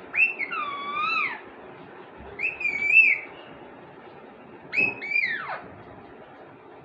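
Pet parrot giving three whistling calls with wavering pitch, the last one sliding steeply downward.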